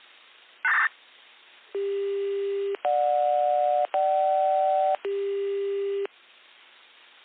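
Electronic start signal of a municipal disaster-prevention radio chime: four steady tones of about a second each, a low one, two higher ones, then the low one again, each cut off abruptly, after a short burst of hiss about a second in.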